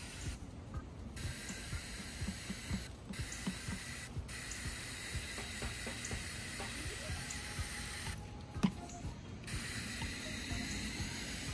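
Garden hose spraying a fine shower of water onto a dry mortar-mix base to wet it so it sets; a steady hiss that cuts out briefly a few times, with a longer pause about three-quarters of the way through. A single dull knock falls in that pause.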